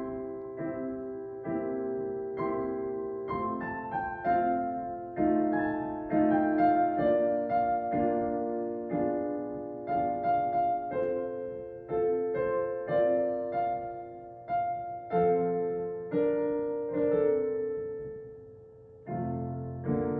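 Solo piano playing a slow, gentle piece in struck chords that ring and fade. The playing dies away to a brief hush near the end before a new phrase begins.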